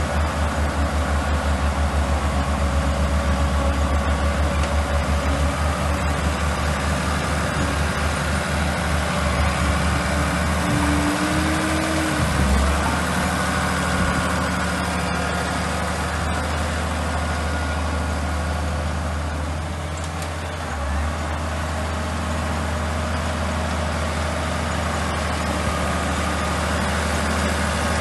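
Komatsu crawler bulldozer's diesel engine running as it pushes dirt and gravel. It has a low, pulsing throb for about the first ten seconds, then settles into a steadier drone.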